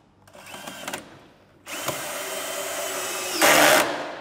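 DeWalt cordless drill driving screws into pine boards: a short spin, a pause, then a longer run of about a second and a half that ends in a louder burst near the end.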